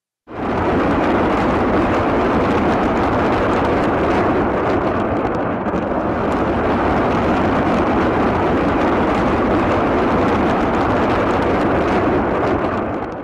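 Truck-mounted multiple rocket launchers firing a rapid salvo. The many rocket launches merge into one continuous, loud rushing noise with a fine crackle, which starts abruptly and cuts off just before the end.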